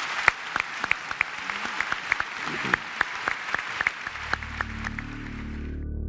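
Audience applauding, with many separate claps. Soft ambient music fades in about two-thirds of the way through, and the applause cuts off shortly before the end.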